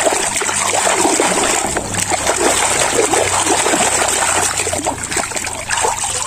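Hands rummaging in a tub of water, with irregular splashing and dripping as toys are moved and lifted out.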